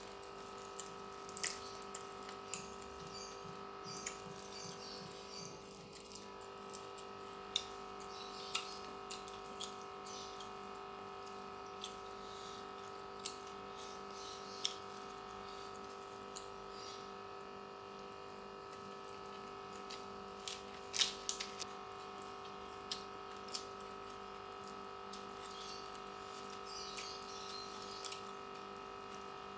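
Eating by hand: scattered short wet clicks and smacks of chewing and of fingers picking at fried fish and rice, over a steady background hum.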